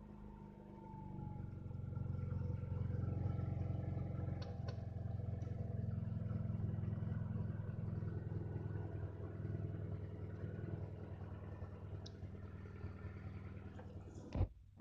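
Honda Accord four-cylinder engine idling steadily with the AC compressor removed and a bypass pulley fitted. The level rises over the first couple of seconds, then holds, and the sound cuts off abruptly just before the end.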